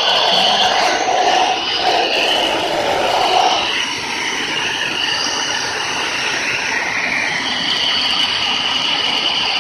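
Small electric fan running, a loud steady airy whine with a couple of steady tones. In the first few seconds the lower tone wavers as a plastic cup is held against the fan. About four seconds in it fades and the sound drops a little as the cup comes away.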